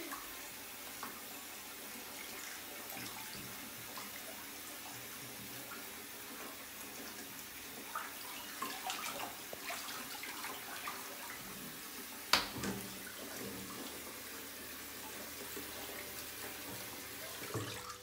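Bathwater sloshing and lightly splashing as hands move through it in a bathtub, with a single sharp click about twelve seconds in.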